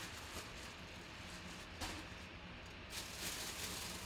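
Bubble wrap and a clear plastic bag crinkling and rustling faintly as a football helmet is unwrapped by hand, with one sharp click a little under two seconds in.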